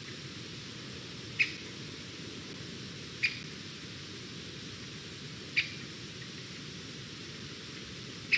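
Young white-tailed eagle giving short, sharp, high-pitched squeaky calls, four of them about two seconds apart, over a steady hiss.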